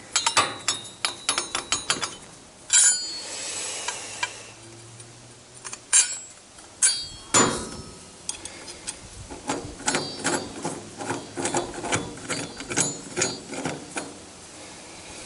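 Steel parts of a homemade tool stand clinking and clicking as the hook bar is fitted onto its steel rod and the wing nut is worked on the bolt. There is a quick run of small clicks at the start, a louder clatter about three seconds in, a few knocks around six to seven seconds, then a long run of light clicks.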